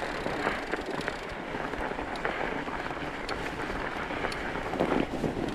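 Fat bike with chained tyres rolling over a snowy trail: a steady rolling noise with scattered irregular clicks and crunches, and wind on the microphone.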